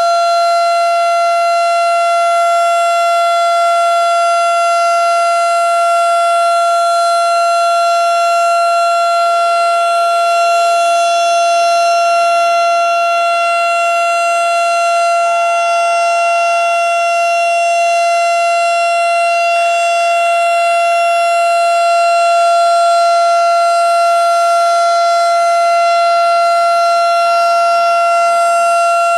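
Outdoor tornado warning siren sounding a steady alert tone, one unwavering pitch held without rising or falling.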